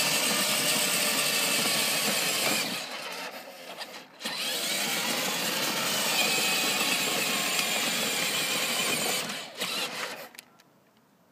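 Battery-powered children's ride-on car driving, its electric drive motors and plastic gearbox whirring steadily. The whirring drops away for about a second and a half some three seconds in, runs again, and stops near the end after a short last burst.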